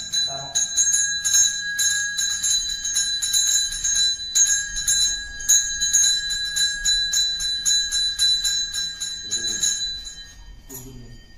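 Hand bell (ghanta) of a Hindu temple rite rung continuously in quick strokes, about four a second, with a clear steady ringing tone. The ringing stops about ten seconds in.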